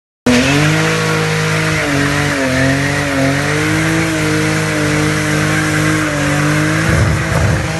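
Car engine running hard at high revs, cutting in abruptly about a quarter second in and holding steady with a slightly wavering pitch.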